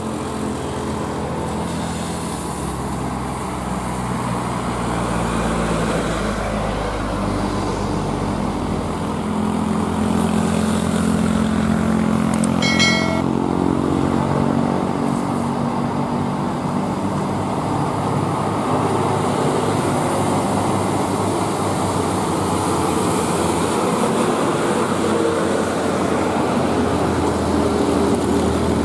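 Diesel engine of a fully loaded Hino 500 dump truck pulling slowly up a steep climb, growing louder as it comes closer. A short horn beep sounds about halfway through.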